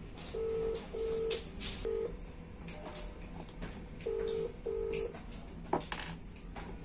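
Telephone ringback tone, the ringing a caller hears while waiting for an answer: pairs of short low beeps repeating every few seconds. Light clicks and taps from hands handling small plastic parts sound between the beeps.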